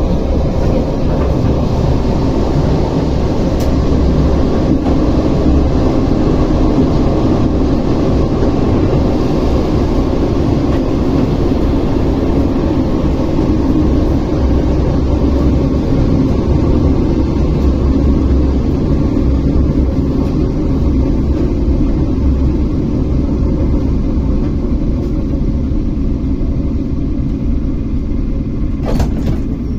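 ER9T electric multiple unit running along the line, heard from aboard: a steady, loud rumble of wheels and running gear, with a brief click near the end.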